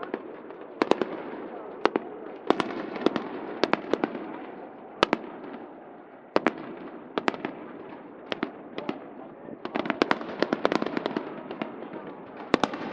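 Aerial fireworks bursting in an irregular string of sharp bangs, sometimes several a second and thickest near the end, over a steady background din.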